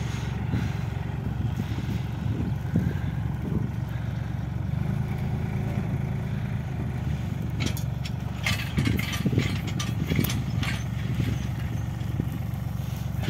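Hattat diesel tractor engine running steadily as it pulls a trailer-mounted bale loader, with a spell of clatter and knocks past the middle as square straw bales are carried up the loader and land on the load.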